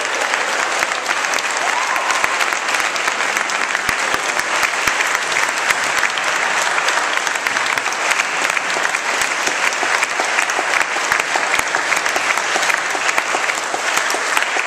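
A congregation applauding, many hands clapping in a dense, steady patter.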